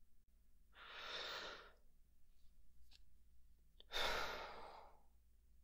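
A man breathing close to a binaural microphone: a soft breath about a second in, then a louder sigh about four seconds in that starts sharply and fades out.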